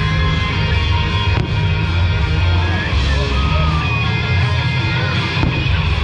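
Loud rock show music with heavy bass playing over a fireworks display, with one sharp firework bang about a second and a half in.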